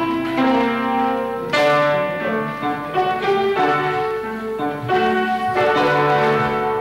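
Instrumental music: held chords and melody notes changing every second or so, with new notes struck at intervals.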